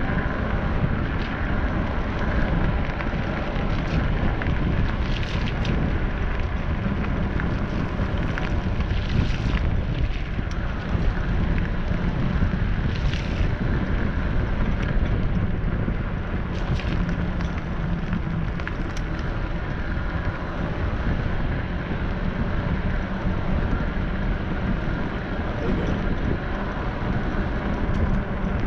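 Steady rumble of a vehicle on the move, with wind buffeting the microphone.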